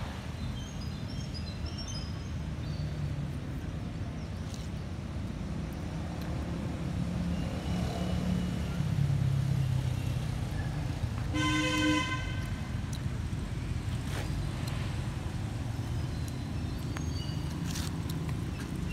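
Steady low rumble of motor traffic, with a vehicle horn sounding once, for under a second, a little past the middle. Faint high chirps come in near the start and again near the end.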